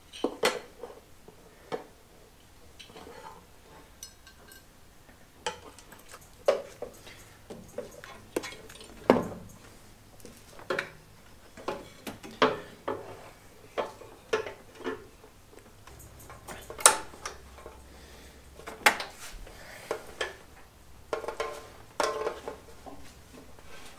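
Irregular metal clinks and knocks, roughly one a second, from steel winch-mounting brackets, bolts and hand tools being handled.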